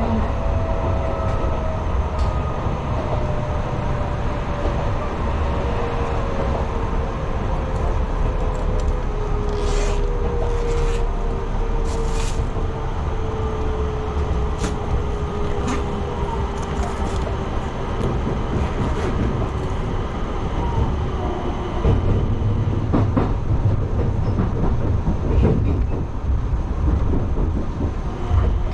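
Enshu Railway 2000-series electric train running on the line, heard from inside the car: a steady rumble of wheels on rail under a motor whine that falls slowly in pitch over the first twenty seconds or so as the train loses speed. Scattered clicks from the track come in the middle, and the rumble grows a little louder near the end.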